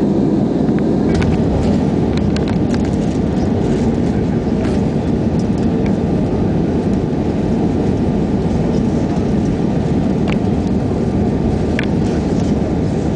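Steady cabin roar of an Airbus A320-family jetliner's engines and airflow, heard from a window seat inside the cabin during descent. A few light clicks sound over the roar.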